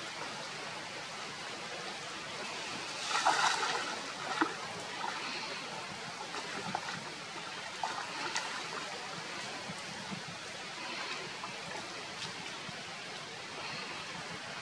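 Water sloshing and trickling as a monkey wades and swims through shallow water, with a louder rush of noise about three seconds in and a few small splashes after it.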